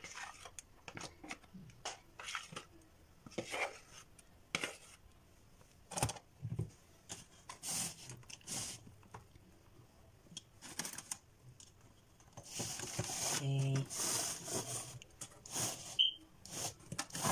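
Plastic spatula scraping thick cream-cheese filling from a plastic jug and spreading it in a paper-lined cake pan: a run of short, irregular soft scrapes and rustles.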